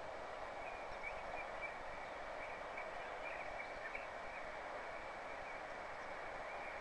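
Steady outdoor background hiss, with a few faint bird chirps in the first half.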